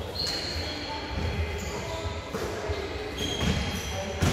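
Basketball play on an indoor court: a ball bouncing, and short high squeaks from sneakers on the floor, over a low rumble, in the reverberant space of a large sports hall.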